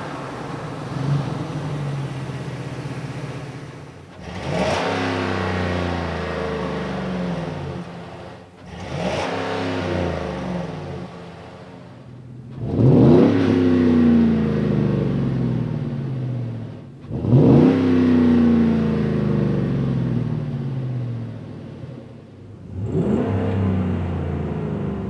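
A Chevrolet Silverado 2500HD's 6.0L V8 is heard through a Flowmaster FlowFX cat-back exhaust with a straight-through muffler, in several short edited clips. In each clip the engine revs up sharply and then slowly winds back down. In the last few seconds the sound changes to the stock exhaust heard from inside the cab.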